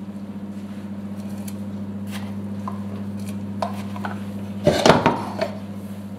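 Kitchenware being handled on a countertop: a few light taps and clicks, then a short burst of clattering, like a plate and a wooden salt box knocking against the counter, about three quarters of the way in. A steady low hum runs underneath.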